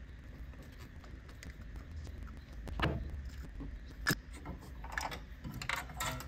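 Faint metallic clicks and rattles of a screwdriver and small parts as the contact-breaker points and condenser are unscrewed and lifted out of a classic Mini's distributor. There is a sharp click about three seconds in, another about a second later, then a run of small rattles near the end.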